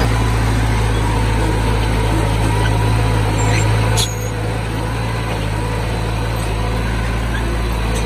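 Bulldozer's diesel engine running steadily with a low, even drone. About four seconds in there is a brief sharp click, and the engine runs a little quieter after it.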